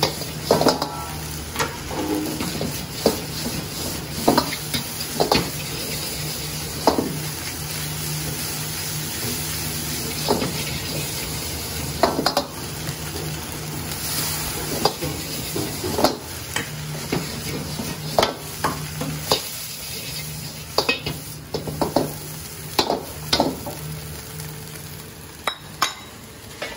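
Fried rice sizzling in a wok over a gas burner, while a metal wok ladle stirs and tosses it, knocking and scraping against the wok in sharp irregular clacks.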